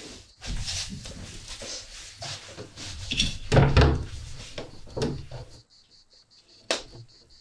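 Clothes rustling and handling with a few dull thumps, the loudest a little over halfway, then a single sharp knock near the end.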